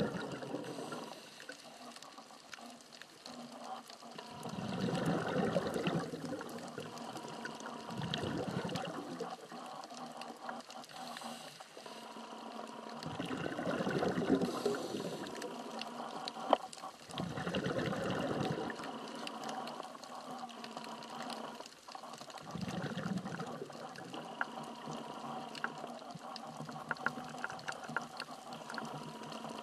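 Scuba diver's exhaled bubbles rushing from the regulator in recurring bursts every four to five seconds, heard underwater, with a quieter hiss between breaths and one sharp click a little past halfway.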